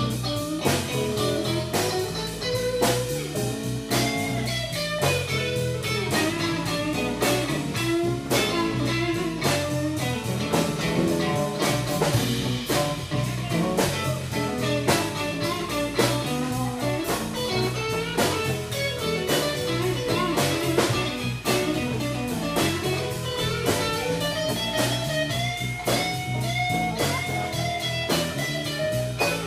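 Live blues-rock band playing: electric guitar lines over bass and a drum kit keeping a steady beat.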